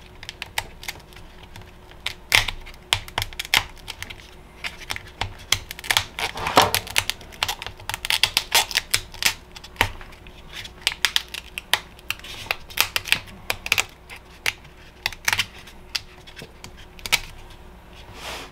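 Irregular clicks and light knocks of hands handling the stacked prismatic cells of a LiFePO4 battery pack, working a foam cushion out from between them.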